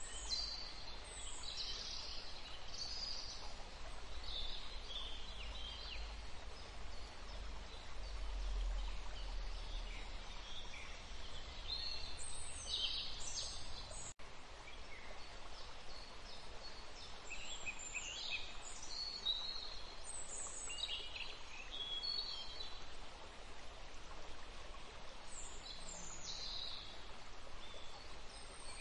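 Outdoor ambience of small birds chirping: many short, high, quick-falling calls over a steady hiss. A low rumble runs under the first half, and the sound drops out for an instant about halfway through.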